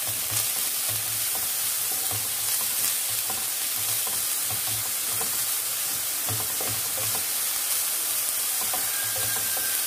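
Coconut and jaggery filling cooking in ghee in a pan, a steady sizzle with a spoon stirring through it in short irregular strokes as the jaggery melts.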